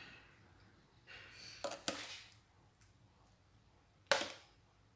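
A metal spoon scraping and clinking against glass dessert cups and the pot while spreading a custard layer, then a single sharp clink about four seconds in.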